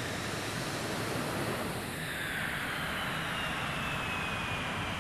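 Twin-engine jet airliner climbing after takeoff: a steady jet roar with a high engine whine that slowly falls in pitch.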